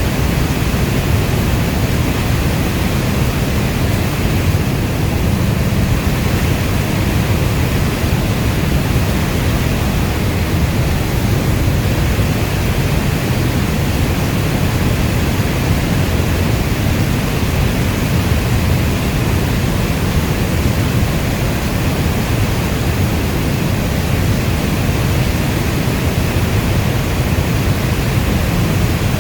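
Heavy rain falling steadily: a dense, even hiss with a deep low rumble and no single drops standing out.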